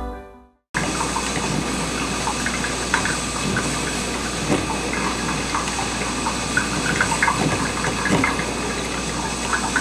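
Cuisinart 12-cup drip coffee maker brewing into its glass carafe: a steady low hum and hiss with irregular gurgles and pops. It starts suddenly about a second in, just after soft music fades out.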